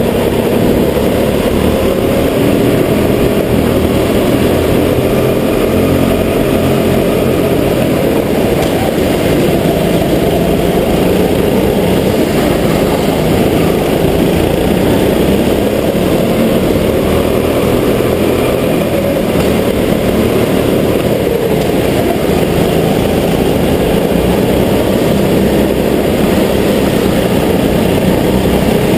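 Rental go-kart's small engine running hard at racing speed, heard from the driver's seat, its pitch wavering as the kart goes through the corners. Other karts are close by on the track.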